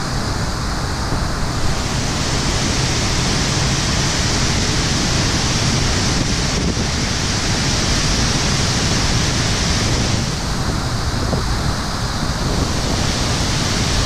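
Waterfall plunging into its pool: a loud, steady rush of falling water.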